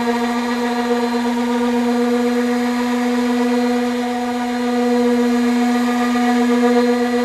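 Power sander with an abrasive pad running steadily as it sands down a repaired body panel, its motor easing slightly in level partway through.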